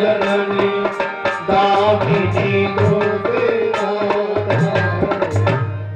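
Devotional music interlude: tabla drumming under a held melodic line, fading away near the end.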